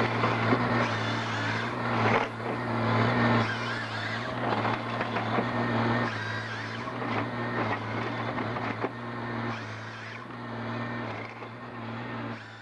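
Heavy machinery running: a steady low engine drone under loud, uneven crackling and clattering that surges and eases every second or two.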